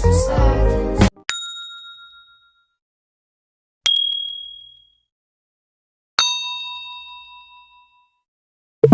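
Music cuts off about a second in, followed by three separate bell dings, each a single clear strike that rings and fades over a second or two, the last one fuller with several tones. A short loud low thump lands at the very end.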